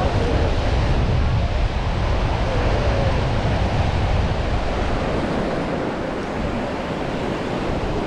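Sea surf washing on a beach, with wind buffeting the microphone in a low rumble that eases about five seconds in.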